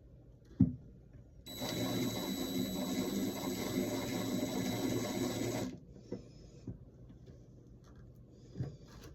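A sharp click, then a small electric motor running steadily for about four seconds before cutting off suddenly.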